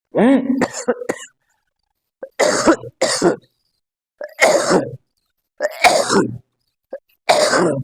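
A man coughing hard and clearing his throat on purpose with his mouth open. A throaty sound in the first second is followed by about six short, harsh coughs. The coughing is meant to shake loose and bring up phlegm during ujjayi pranayama.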